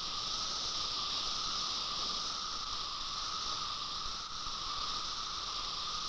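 A chorus of male periodical cicadas calling in unison, a steady, unbroken drone with a lower whine beneath it: the males' mating call.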